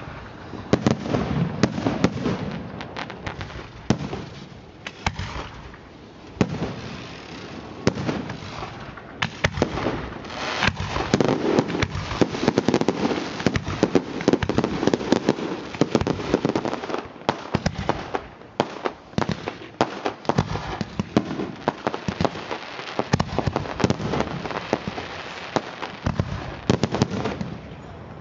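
Fireworks going off without a pause: many overlapping bangs and crackles from rockets and firecrackers, thickest in the middle of the stretch.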